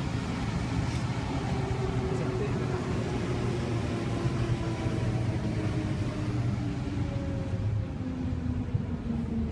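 Inside a moving metro train: a steady rumble with a motor whine that falls slowly in pitch as the train slows.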